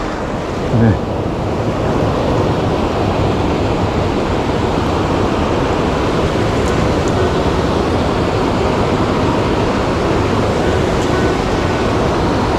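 Steady rushing of a mountain stream, an even wash of running water.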